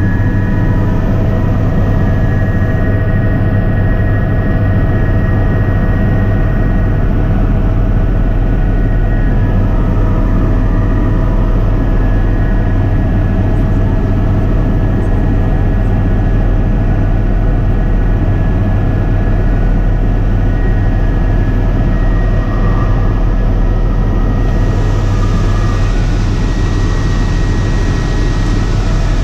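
Helicopter engine and rotor running steadily, heard from inside the cabin: a loud low drone with several steady whining tones above it. A brighter hiss comes in near the end.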